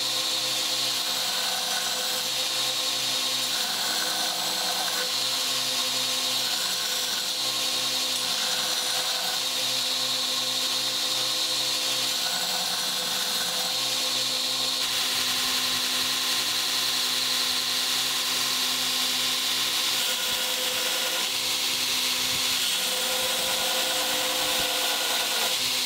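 Belt grinder running with a pattern-welded steel knife blank pressed against its abrasive belt, a steady grinding as the forge scale is rough-ground off the blade.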